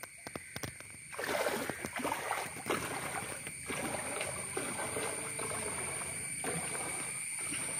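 Feet wading through shallow floodwater, a steady sloshing and splashing that starts about a second in.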